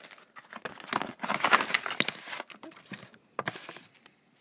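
Package being opened by hand: paper and plastic packaging crinkling and rustling in irregular bursts, with a few sharp clicks.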